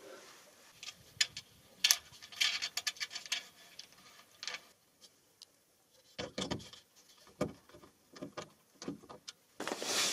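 Scattered small metallic clicks and taps as a copper grounding lug, bolt and star washers are handled and fitted onto a solar panel frame, with a few duller knocks about six seconds in.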